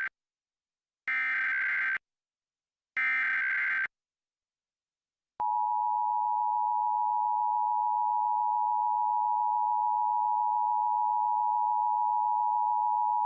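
Emergency Alert System test alert tones: two roughly one-second bursts of screeching SAME header data, then about a second and a half later the steady two-tone EAS attention signal, held for about eight seconds.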